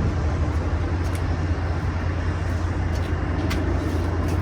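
A machine running with a steady low hum, with a few faint clicks over it.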